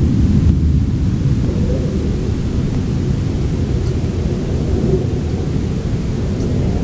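A loud, steady, deep rumble with no clear pitch, holding without a break, of the kind posted as a mysterious sound in the sky.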